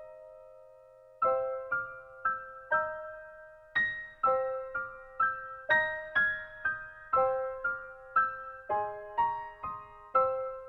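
Background music: a slow, gentle melody of single piano notes, each struck and left to ring out, about two a second, starting about a second in.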